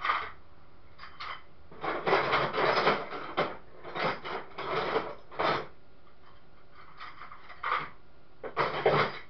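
Hand tools and metal parts being handled: irregular scraping and rubbing in several short bursts with quiet gaps between.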